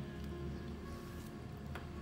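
Quiet background music with steady held tones, and one faint click near the end.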